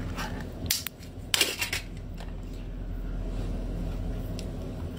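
Sharp metallic clicks and a short clatter about a second in as the thin metal pull-tab lid of a food can is torn free and handled, then a steady low hum.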